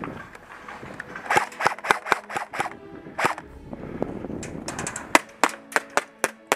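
Airsoft guns firing single shots: sharp cracks, scattered and irregular at first, then coming about three a second near the end.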